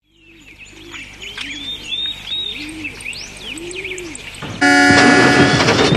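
Birds chirping, with a dove cooing in a low, repeated phrase, fading in from silence. About four and a half seconds in, a much louder sound cuts in over them.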